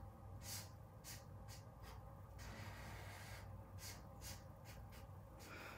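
Felt-tip marker drawn across paper in short repeated strokes, each a soft scratchy hiss, over a faint steady room hum.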